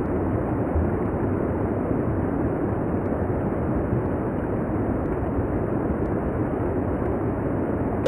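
Steady, muffled rush of falling water from a waterfall, deep and even, with the higher hiss cut away.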